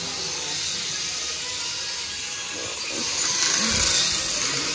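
Small toy drone's propellers buzzing, swelling louder a little after three seconds in, with a dull thump near four seconds.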